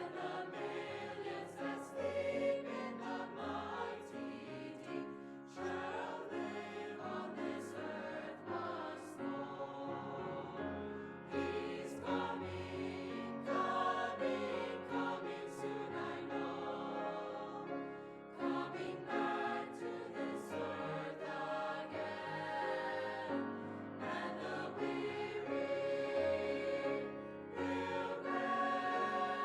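Choir singing slow, sustained sacred music with instrumental accompaniment.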